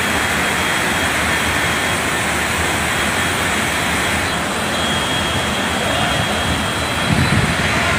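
Fast-flowing floodwater rushing past in a steady, loud wash of noise, with a short low rumble near the end.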